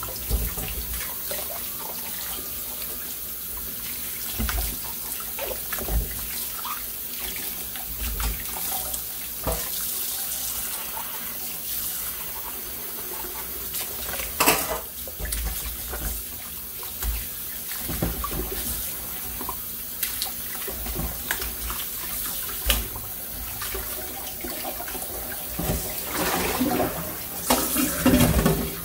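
Kitchen tap running water into a sink, with scattered knocks and splashes as things are rinsed under it, busier and louder near the end.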